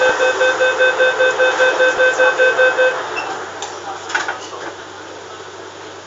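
MTR K-Train door-closing warning beeping rapidly, about four beeps a second, then stopping about three seconds in. A few short knocks follow around four seconds in, over the steady hum of the train car.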